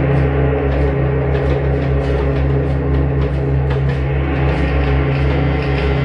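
Live band playing an instrumental passage: a steady, heavy low drone with drums, and cymbal strikes a little more than twice a second.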